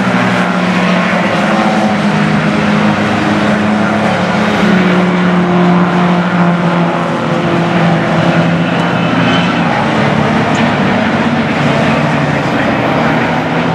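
Engines of a pack of historic sports racing cars running hard through a bend, several engine notes overlapping and held steady.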